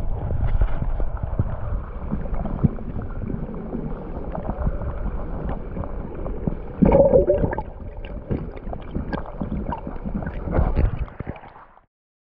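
Water sloshing and gurgling around a camera held underwater in a fast-flowing stream, with irregular knocks and a louder bubbling burst about seven seconds in. The sound cuts off abruptly just before the end.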